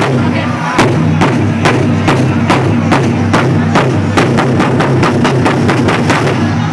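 Taiko ensemble beating several nagado-daiko barrel drums with wooden bachi in a fast, driving rhythm that quickens into a tight run of strikes and stops near the end.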